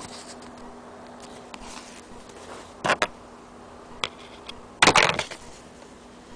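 Handling noise: two short scuffs, the second longer, with a single click between them, over a faint steady hum.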